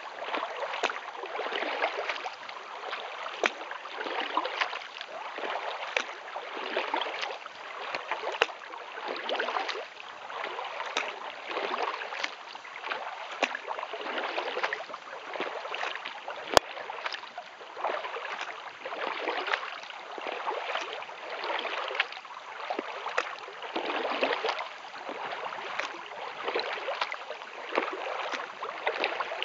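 Kayak paddle strokes through calm lake water in a steady rhythm of about one stroke a second, each a swish and splash of the blade, with small sharp splashes between and one sharper tap about halfway through.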